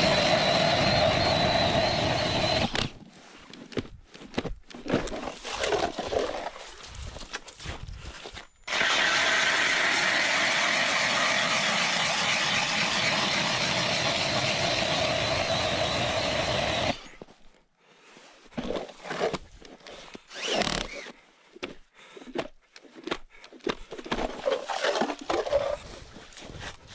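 Ryobi cordless drill spinning an ice auger down through lake ice: a steady motor whine for about three seconds at the start and again for about eight seconds in the middle. Between and after the two drillings come scattered scrapes and knocks.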